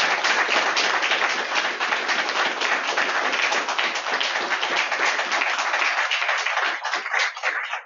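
A group of people applauding at the end of a talk, the clapping dense at first and thinning out toward the end.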